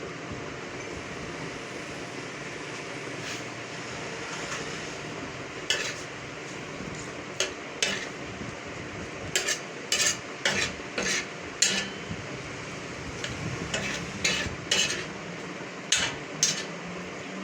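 Chicken masala sizzling on a tawa while it is stirred. From about six seconds in come repeated sharp clanks and scrapes of the spatula against the pan.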